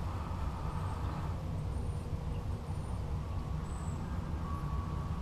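Breath blown into a jute bird's-nest tinder bundle holding a smoldering punk-wood ember, coaxing the ember toward flame, over a steady low rumble.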